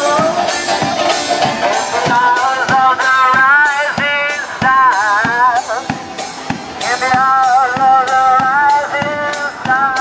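A one-man band playing: a banjo over a back-worn drum struck in a steady beat of about two and a half strokes a second, with a wavering melody carried on top.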